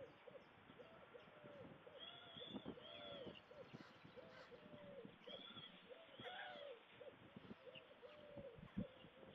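Faint chorus of distant bird calls: many short, arching calls repeating throughout, with a few faint knocks in between.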